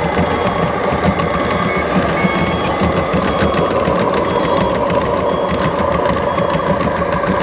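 1/14-scale RC Komatsu wheel loader reversing: its steady motor and engine-sound running is overlaid by a repeating reversing beeper as it backs away from the dump truck.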